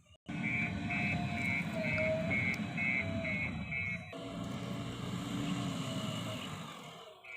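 Backhoe loader's diesel engine running, with a high reversing-alarm beep repeating about twice a second that stops about halfway through, leaving the engine alone.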